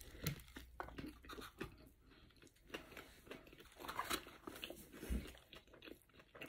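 A man biting into and chewing a pastrami burger close to the microphone: faint, irregular mouth clicks and smacks, with a soft low thump about five seconds in.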